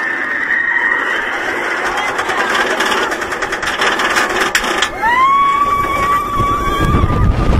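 Bolliger & Mabillard inverted roller coaster train clattering up the last of its chain lift, with a quick run of sharp clicks as it crests. About five seconds in, riders let out a long, high, held scream as the train tips into the first drop. Rushing wind and track rumble build beneath it near the end.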